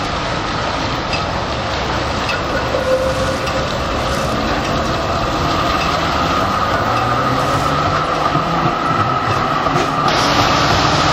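Melbourne B-class articulated tram rolling slowly around a curve through a junction on wet track, with a steady high tone from the wheels on the curve over the running noise. It gets louder near the end as the tram passes close.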